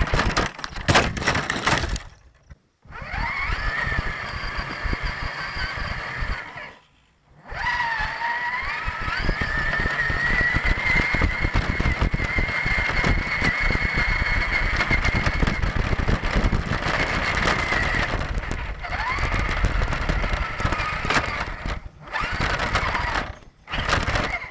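Electric motor and gearbox of a 1/10-scale Axial Deadbolt RC crawler whining as it drives. The pitch rises as it speeds up, then holds steady, over the rattle and crunch of the wheels and chassis on rough ground. The sound cuts out briefly twice.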